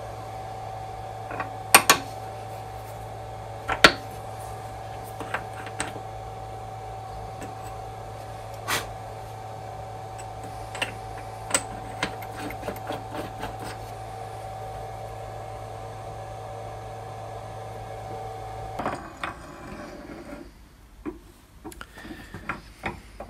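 Metal clinks and knocks of a machine vise being loosened with a wrench and a steel ball screw being lifted out, over a steady machine hum. The two loudest knocks come in the first four seconds, and the hum stops abruptly near the end, leaving a few faint taps.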